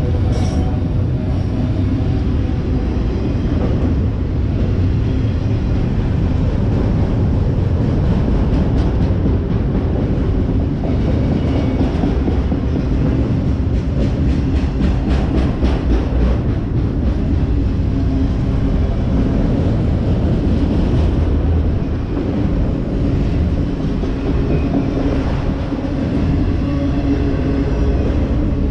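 Freight train of autorack cars rolling slowly past close by: a steady low rumble of wheels on rail, with a run of quick clicks in the middle.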